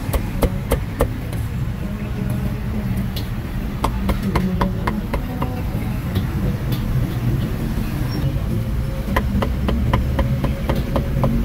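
Cleaver chopping cooked meat on a thick round wooden chopping block, in quick runs of sharp knocks: one near the start, another about four seconds in, and a longer run near the end. A steady low rumble of street traffic runs underneath.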